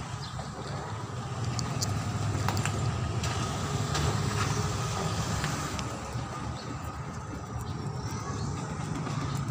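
Low rumble of a passing motor vehicle that swells over the middle seconds and then eases off, with a few faint ticks from a screwdriver tightening a speaker-grille screw.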